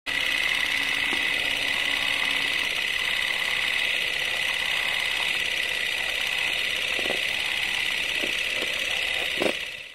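A loud, steady hiss of noise sitting in a high band, with a few faint knocks in its last few seconds, cutting off abruptly at the end.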